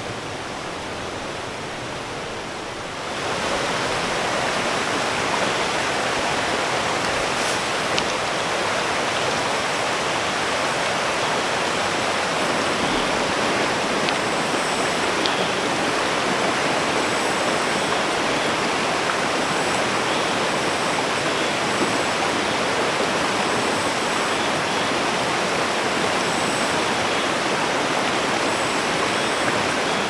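A rain-swollen mountain stream rushing over rocks: a steady wash of water noise that gets louder about three seconds in and then holds.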